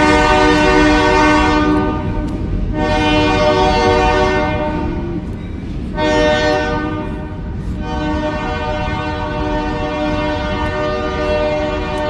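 Train air horn sounding three long blasts: two of about two seconds each, then a third starting about halfway through that is held on. A steady low rumble runs underneath.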